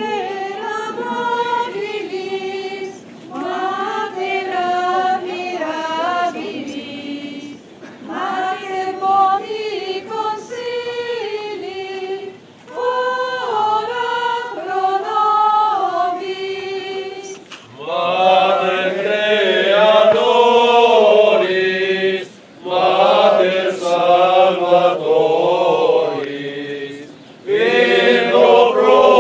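Procession of people singing a hymn together with no instruments, in phrases with short pauses between them. Higher voices carry the first half; about halfway through, louder, lower voices take over.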